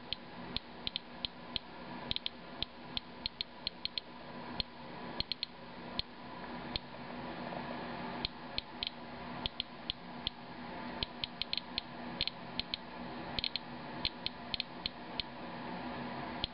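Inspector Alert Geiger counter clicking at an irregular rate, roughly two to three clicks a second, sometimes in quick clusters; each click is one detected count. The display reads about 140 to 180 counts per minute from a rain sample, several times the 40.6 CPM background. A faint steady hum runs underneath.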